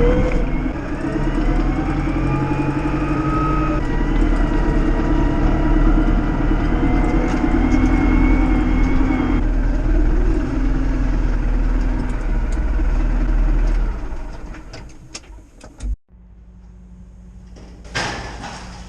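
Tractor engine running, its pitch rising and falling as it is revved and eased off. About fourteen seconds in it dies away, leaving a low steady hum, and a short clatter comes near the end.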